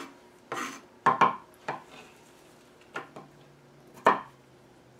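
Kitchen knife cutting small carrots on a wooden cutting board: about half a dozen sharp, separate knocks at an irregular pace, with the loudest near the start and about a second before the end.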